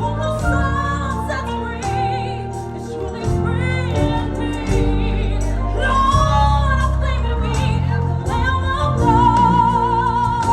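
Gospel song performed live: a female lead singing long held notes with strong vibrato over a band of keyboard, bass and drums.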